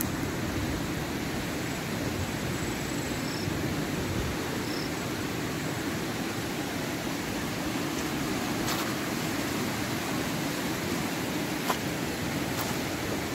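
Steady rush of flowing river water, with a brief sharp click late on.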